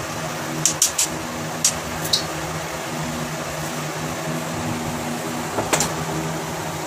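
Hammer blows on a concrete wall: three quick sharp knocks just under a second in, two more around two seconds, and a close pair near the end. A steady mechanical hum runs underneath.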